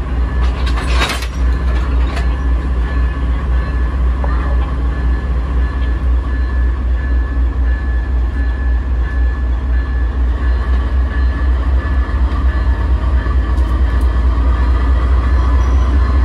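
Amtrak locomotive running, a steady low rumble with a faint steady whine over it; a brief sharp click about a second in.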